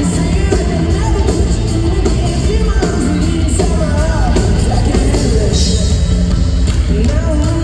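Live pop-rock band playing in an arena, with a steady drum beat, heavy bass and a lead vocalist singing.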